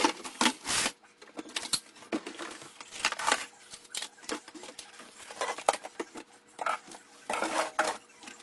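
Plastic cleaning-product bottles and a plastic caddy being pulled out of a cabinet and set down, making irregular clunks, knocks and rattles.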